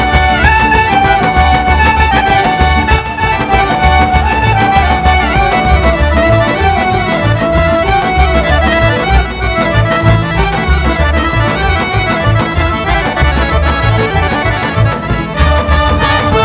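Serbian folk dance music from a live folk orchestra, with an accordion carrying the melody over a steady pulsing bass beat.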